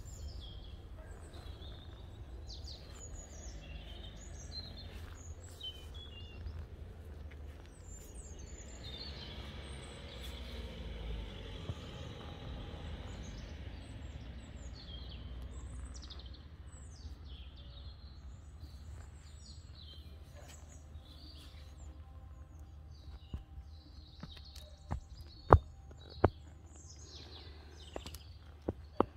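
Outdoor ambience: small birds chirping on and off over a steady low rumble that swells and fades in the middle. A few sharp clicks or taps come near the end, louder than the rest.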